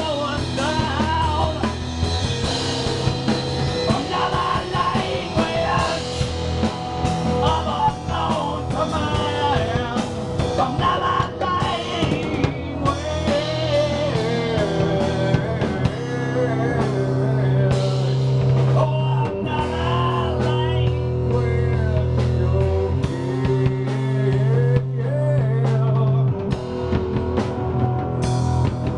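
Live rock music: a loud electric guitar and drum kit playing, with a man singing over them.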